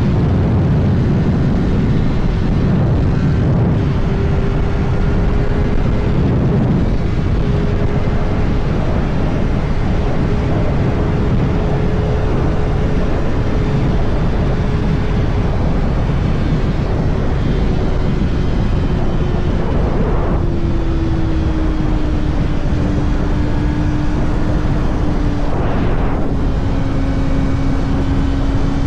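2024 Kawasaki ZX-6R's 636 cc inline-four running at a steady cruise under wind rush. The engine note drops slightly about two-thirds of the way through and then holds steady.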